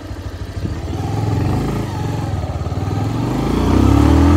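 Motorcycle engine running as the bike rides off and climbs, growing louder over the last second or so, picked up by the phone's own microphone because the external mic was not plugged in.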